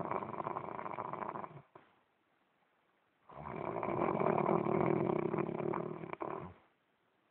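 A man snoring in his sleep: one long snore tails off under two seconds in, and after a pause of about a second and a half comes another long snore of about three seconds.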